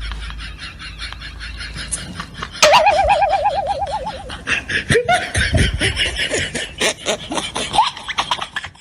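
People laughing hard in quick pulses. About two and a half seconds in, a loud warbling tone wavers for over a second, followed later by a few short squeals that slide in pitch.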